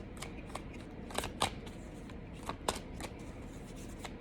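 Tarot cards being handled and shuffled: scattered light clicks and flicks of card stock, with a few sharper snaps.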